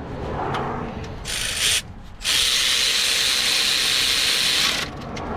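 Impact wrench driving a bolt in: a short burst, then a longer, steady hammering run of about two and a half seconds.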